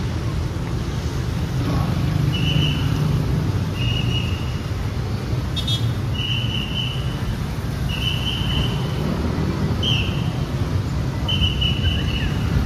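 A whistle blown over and over in short, high, steady blasts about every second or two, over a steady rumble of street traffic.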